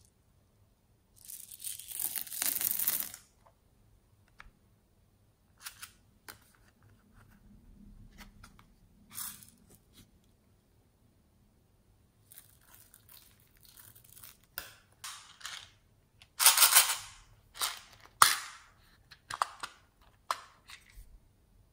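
Small plastic beads and decorations being handled, rattling and rustling in short bursts with sharp clicks, and a plastic storage case being handled near the end.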